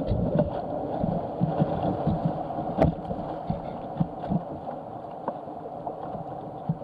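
Rushing whitewater of a rapid, heard from a canoe running through it, with splashing and many low thumps against the boat and a sharp knock about three seconds in.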